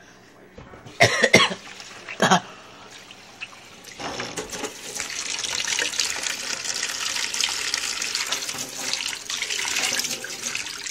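A person's two short, loud vocal outbursts, then, from about four seconds in, a kitchen faucet running a steady stream into a stainless steel sink.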